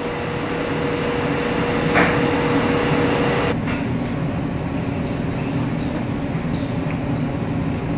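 Follett Horizon Elite ice machine draining its water in clean mode: a steady sound of running water with a steady hum that cuts off suddenly about three and a half seconds in. A short click comes about two seconds in.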